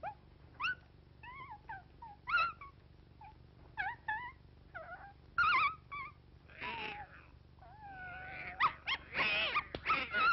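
Cartoon animal sound effects of a puppy and a cat squaring off. First come a series of short, high yips and whimpers. From about eight seconds in there are long wavering wails mixed with a noisy scuffle as they tangle.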